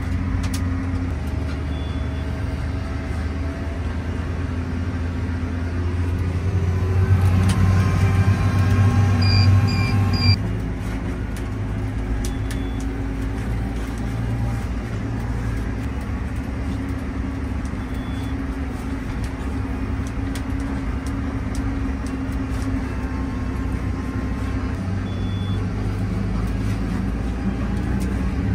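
Massey Ferguson tractor engine running steadily under load, heard from inside the cab while pulling a seed drill. About six seconds in it grows louder for a few seconds, three short high electronic beeps sound, and it drops back suddenly about ten seconds in.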